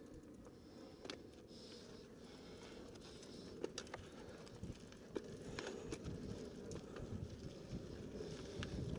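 Mountain bike rolling down a loose dirt and stony trail: a steady low rumble of the tyres on the ground, with scattered sharp clicks and knocks from stones and the bike's rattling parts. It gets louder in the second half.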